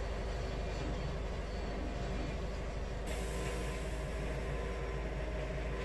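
Wood-Mizer LT70 sawmill's engine idling steadily while it warms up, with the blade not yet in gear. A faint high hiss joins about halfway through.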